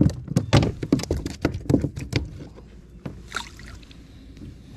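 A freshly landed bass flopping on the plastic deck of a kayak: a rapid run of slaps and knocks for about two seconds, then one more knock about three and a half seconds in.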